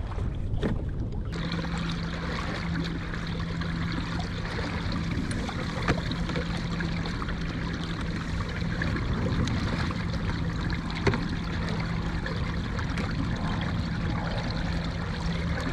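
Water trickling and splashing along the hull of a moving fishing kayak, over the steady low hum of its electric drive motor, coming in about a second in.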